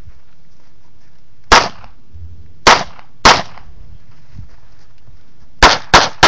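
Pistol shots fired during a course of fire. A single shot comes about a second and a half in, then two shots about half a second apart, then a quick string of three shots about a third of a second apart near the end, each with a brief ringing echo.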